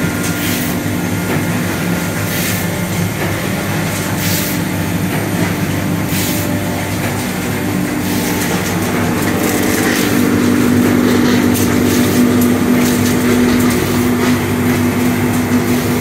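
Hohner HSB 13000 saddle stitcher running, a steady mechanical hum with brief sharp bursts about every two seconds in the first half. The hum grows louder from about ten seconds in.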